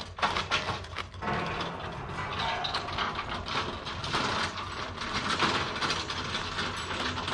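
Small flatbed trailer being pulled forward out from under a removable camper top. A few clicks in the first second, then a steady mechanical rattle as it rolls out.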